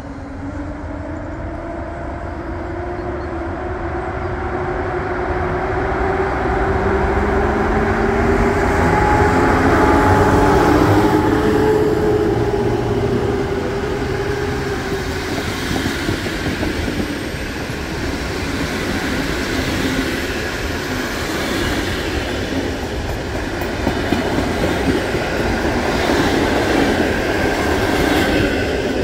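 PKP Intercity electric locomotive and passenger coaches running past close by. In the first half there is a whine that rises slowly in pitch and the sound grows to its loudest as the locomotive passes. Then the coaches rumble by with a clickety-clack of wheels over rail joints.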